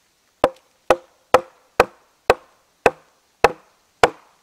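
A hatchet set in the end of a wet poplar log is driven in by repeated blows from a wooden mallet. There are eight sharp, woody knocks, about two a second, slowing slightly toward the end.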